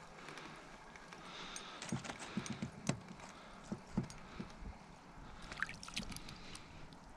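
Faint, irregular taps and knocks as a bluegill is reeled up through an ice-fishing hole on a light spinning rod and reel and lands flopping on the ice about six seconds in.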